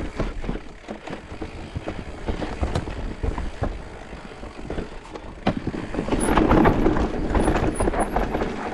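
Electric mountain bike riding a dirt trail: tyres rolling on dirt with the bike rattling and many short knocks over roots and rocks, louder in the second half.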